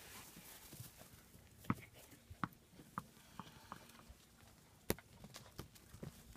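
German Shepherd puppies' claws and paws clicking and tapping on a concrete patio as they play, scattered sharp taps with a louder one about five seconds in.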